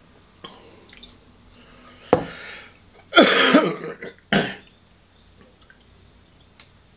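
A man coughing and clearing his throat: three harsh bursts between about two and four and a half seconds in, the middle one longest and loudest. It is his reaction to a mouthful he calls disgusting.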